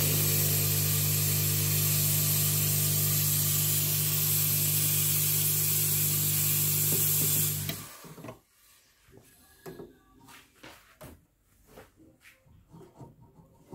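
Steam wand of a Milesto Irina double-boiler espresso machine being purged after steaming milk: a loud, steady hiss of steam with a low hum under it, cut off suddenly about eight seconds in as the steam knob is closed. A few light knocks and clicks follow.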